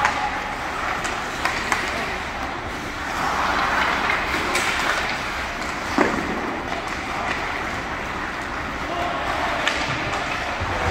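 Ice hockey arena noise: a steady din of skates scraping on the ice and crowd voices, with scattered clicks of sticks and puck and one sharp crack about six seconds in.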